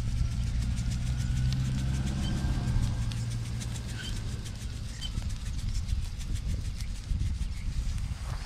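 Whole small fish frying in oil in a pan, sizzling with a steady scatter of small pops and crackles. A low engine hum is heard for the first three seconds, then fades.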